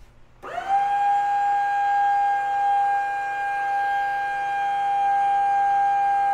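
Electric forklift's hydraulic lift pump motor whining as the mast raises the load. About half a second in it spins up with a quick rise in pitch, then holds one steady high whine.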